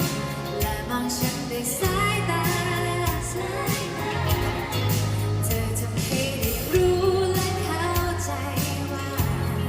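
Live band playing a Thai pop song, with singing over steady bass and regular drum hits.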